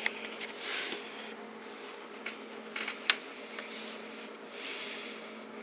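Handling noise from a plastic blister pack and a small LED headlamp being moved about on a bench: soft rustling with a few light clicks, the sharpest about three seconds in.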